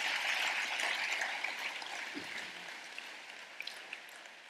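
Audience applauding, loudest at the start and gradually dying away.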